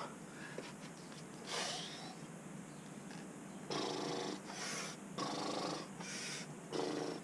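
A boulderer's heavy breathing under strain on a roof traverse. One hissing breath comes about a second and a half in. From about three and a half seconds in, short exhales with a bit of voice alternate with sharp, hissing intakes of breath, a little more than one a second.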